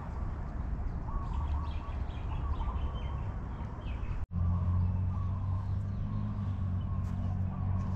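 Birds chirping in short calls over a steady low rumble of outdoor background noise; about four seconds in the sound drops out for an instant and the background turns into a steadier low hum.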